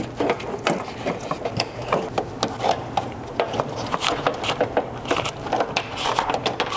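Car wiring harness and plastic cable holders being tugged and worked loose behind the dashboard: a dense, irregular run of small clicks, rattles and rubbing.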